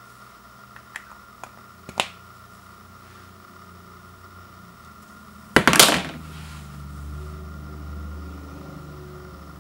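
Plastic deodorant stick handled with a few light clicks, then set down on a wood floor with a loud clatter of several quick knocks a little past halfway, followed by a low rumble.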